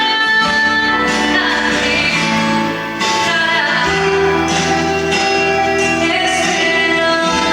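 Recorded gospel song playing, with sung vocals over guitar and other instruments.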